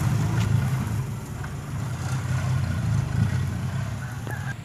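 Diesel engine of a six-wheel dump truck laden with soil, running steadily as the truck drives off and slowly growing fainter as it moves away.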